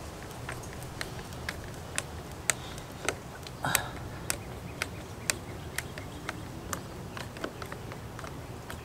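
Irregular sharp clicks and taps, about one or two a second, from a hand screwdriver working at a light fixture on an RV's exterior panel, with a short scrape about four seconds in.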